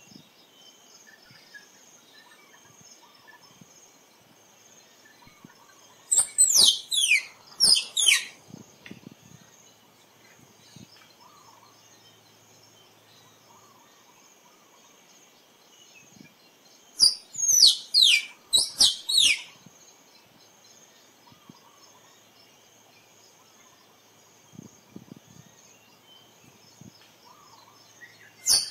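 Tree squirrel calling in bouts of quick, high-pitched falling squeaks, a handful in each: one bout about six seconds in, another about ten seconds later, and a third starting at the very end. A faint steady insect drone runs underneath.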